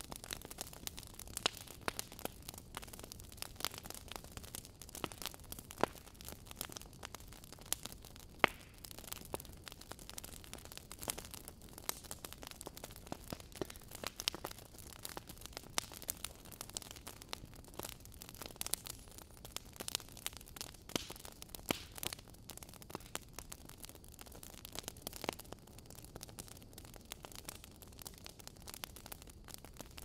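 Log fire burning in a fireplace, crackling: many irregular sharp pops and snaps of varying loudness over a steady soft hiss.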